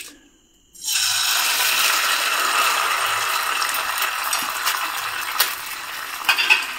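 Eggs dropped into hot oil in a pan, sizzling that starts suddenly about a second in and goes on steadily, easing a little, with a few light clicks.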